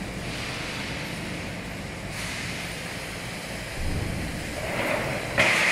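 Automatic sheet-metal shearing and stacking line running with a steady mechanical din. A low thud comes about four seconds in, and a sharp hit near the end is followed by a loud hiss.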